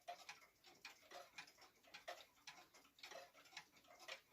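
Faint ticking of clocks, with small sharp ticks several times a second at uneven spacing, as more than one clock ticks at once.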